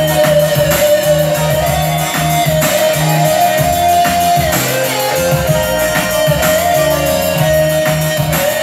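Instrumental break of a Vietnamese ballad played live on an electronic arranger keyboard: a held lead melody line over a pulsing bass and a steady beat, with no singing.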